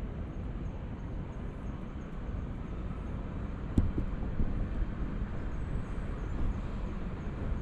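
Steady low rumble of outdoor background noise, with a single short sharp click a little after halfway.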